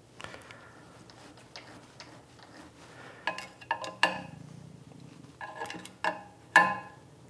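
Hand tools clinking against the lathe's steel servo mounting plate and screws: a few faint ticks, then a handful of sharp, ringing metallic clinks in the second half, the loudest near the end.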